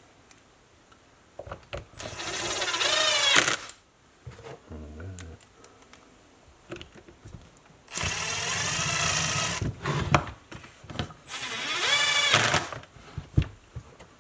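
Cordless drill driving screws into a chainsaw's plastic housing in three short runs, the motor rising in pitch as it spins up during the first and last, with small handling clicks between.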